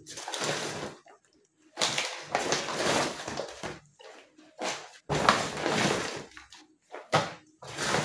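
Plastic grocery packaging rustling and being handled in several bursts with short pauses between them.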